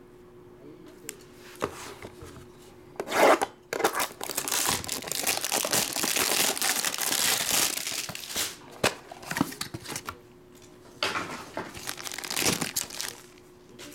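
Clear plastic shrink wrap being torn and crinkled off a sealed card box, with a sharp rip about three seconds in and several seconds of steady crinkling after it. Near the end a black plastic pack crinkles as it is handled.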